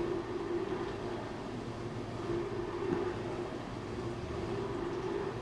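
Steady mechanical hum with one held droning tone, even in level throughout.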